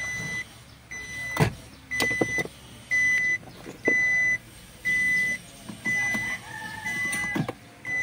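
Electronic warning beeper from a vehicle's dashboard, sounding a steady beep of one pitch about once a second, each beep about half a second long. A few sharp clicks and knocks come from hands working at the relay and fuse box, the loudest about one and a half seconds in.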